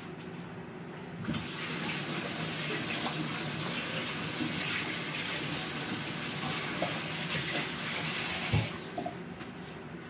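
Kitchen sink tap running, water splashing over hands being rinsed under it. The water comes on about a second in and stops near the end with a thump.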